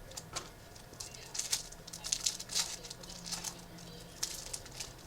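Trading cards being handled: quick, irregular papery swishes and clicks as cards are slid and flipped against each other, busiest in the middle stretch.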